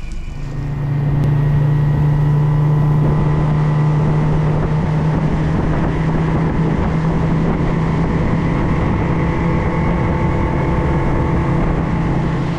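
Outboard motor of a small aluminium tinny running steadily with the boat under way, holding one even pitch.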